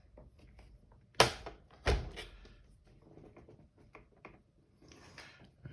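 Two sharp knocks, the first about a second in and the second just under a second later, among small clicks and handling noise: plastic parts of a Eufy robot vacuum's housing being fitted and pressed together.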